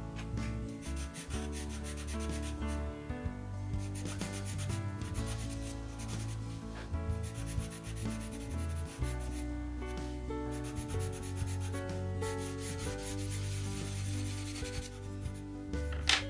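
Pastel pencil rubbing and scratching across pastel paper in quick repeated strokes, in several runs, over background music. A sharp knock near the end.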